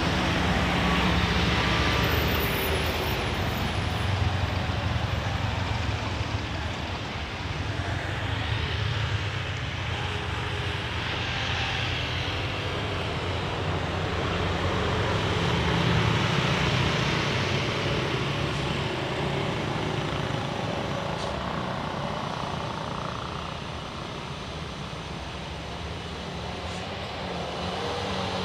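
Diesel truck engines droning as the trucks pull up a steep bend, mixed with passing road traffic. The level swells and dips, rising again near the end as another truck approaches.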